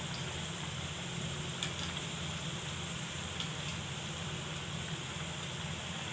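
Hot oil sizzling steadily as tapioca vadais deep-fry in a kadai, with scattered small pops and crackles.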